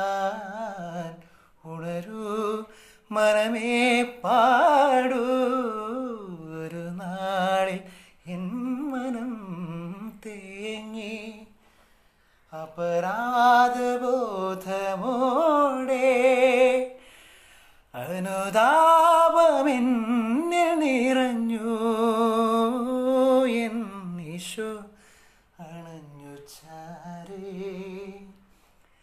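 A young man singing solo and unaccompanied, a melodic song with wavering, ornamented notes sung in phrases separated by short pauses.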